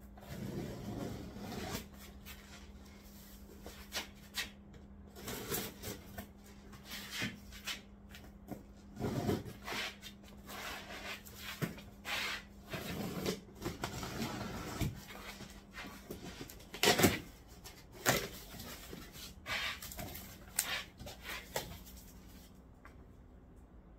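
Knife slicing packing tape on a cardboard box, with irregular scrapes, taps and rustles of cardboard as the flaps are opened, and one sharp knock about seventeen seconds in.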